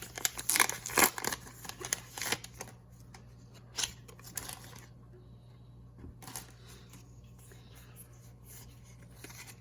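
Foil trading-card booster pack crinkling as it is torn open and the cards handled, busy for the first couple of seconds, then a few soft clicks of card handling and little else.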